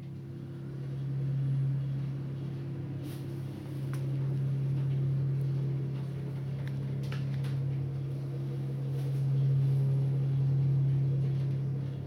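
A steady low machine hum that swells and eases a little in loudness, with a few faint clicks.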